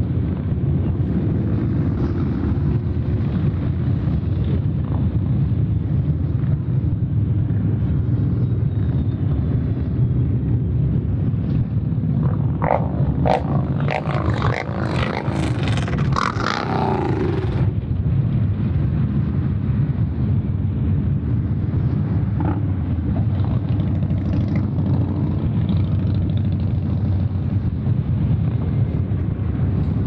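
A steady procession of cruiser and touring motorcycles passing one after another, their engines making a continuous low rumble. A louder, brighter burst of sound cuts in for about five seconds near the middle.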